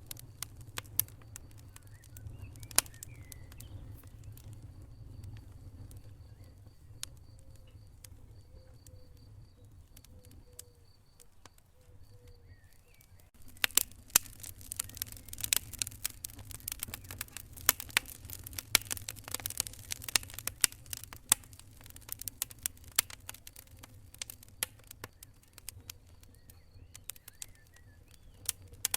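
Wood fire in a fireplace crackling over a low rumble of flames: scattered pops at first, turning into dense, rapid crackling about halfway through.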